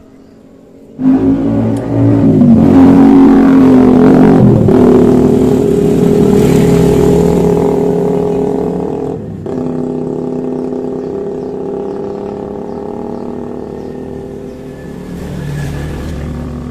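A motor vehicle's engine running close by: it comes in suddenly and loud about a second in, revs and changes pitch for a few seconds, then runs steadily and slowly fades as it moves away.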